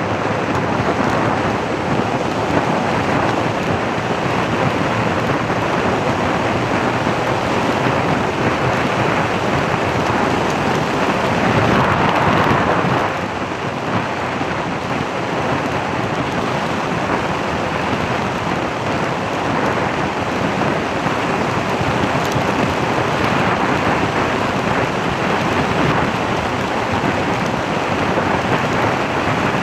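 Loud, steady rushing of wind buffeting the microphone over road noise from a moving vehicle, swelling louder for a moment about twelve seconds in.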